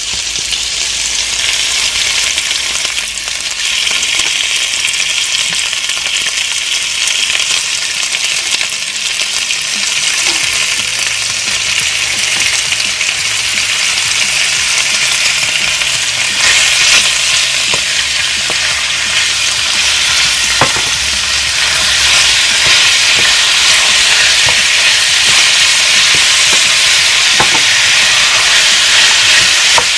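Raw pork pieces sizzling in hot oil with garlic and onion in a stainless steel pan as the meat starts to brown, stirred with a wooden spoon, with an occasional knock of the spoon against the pan. The sizzle is steady and gets a little louder in the second half.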